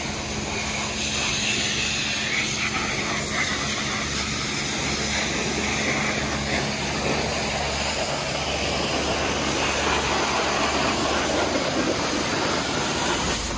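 Pressure washer jet spraying water onto muddy dirt bikes: a steady hiss of spray over the constant hum of the washer's pump.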